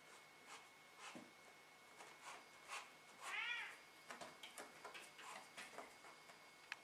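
A cat gives one short meow that rises and falls in pitch, a little over three seconds in, among faint scattered clicks and scratches.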